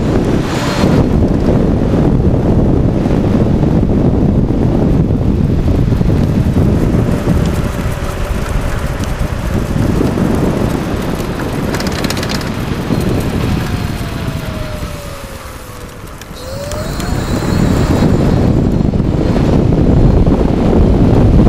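Wind rushing over the microphone of a camera on a moving electric bike, easing off about two-thirds of the way in as the bike slows, then building again. During the lull a faint electric motor whine falls in pitch and rises again as the bike picks up speed.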